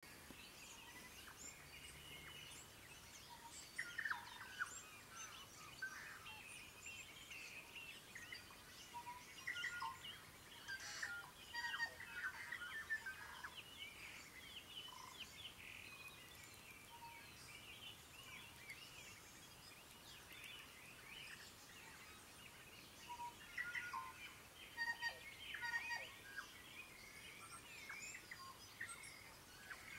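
Morning dawn chorus of many songbirds calling at once: overlapping chirps, trills and whistles, with busier bursts of song about four seconds in, from about ten to thirteen seconds, and again in the last third.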